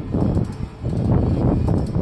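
Heavy steel lashing chains rattling and clanking as a ratchet load binder is worked by hand to tension the chain, with a brief lull a little before the middle.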